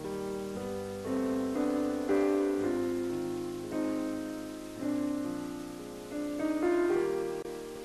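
Slow, gentle piano music: notes and chords struck about once a second, each left to ring away.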